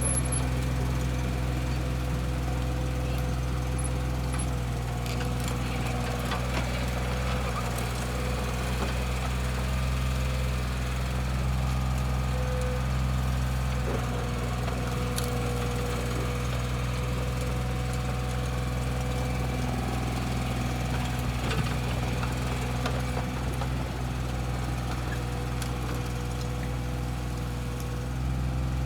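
Komatsu PC15-3 mini excavator's diesel engine running steadily at a constant speed, with a few faint knocks scattered through.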